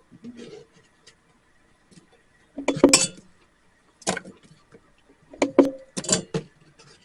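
Kitchen clatter: a series of sharp clinks and knocks of cookware and utensils, the loudest about three seconds in and a quick run of them between five and six and a half seconds.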